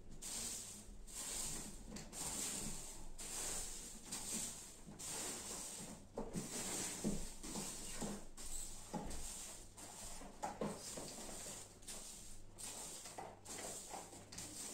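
Short-handled straw broom sweeping a floor in steady, repeated swishing strokes, about one a second.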